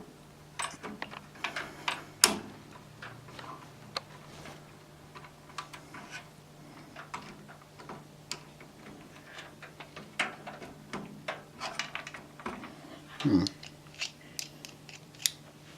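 Irregular small clicks and taps of a screwdriver working a CPU heatsink's locking pin loose from the motherboard, with a sharper click about two seconds in and another cluster near the end.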